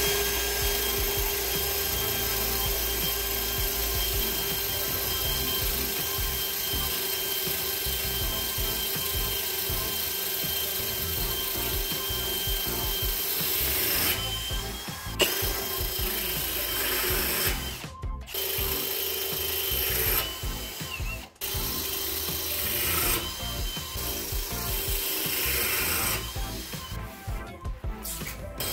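Cordless drill running steadily as its bit bores into ceramic floor tile, with a constant motor whine. In the second half the drilling stops and starts again several times with short pauses.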